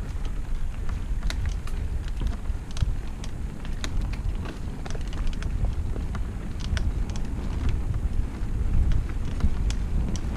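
Mountain bike being ridden along a trail: a steady low rumble of wind buffeting the microphone and tyre noise, with scattered clicks and rattles from the bike and the trail surface.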